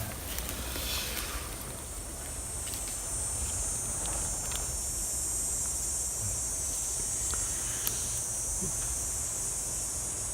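A steady high insect drone sets in about a second and a half in and holds. Underneath it, soft breathy puffs of someone blowing on a smouldering hand-drill coal in a tinder bundle to bring it to flame.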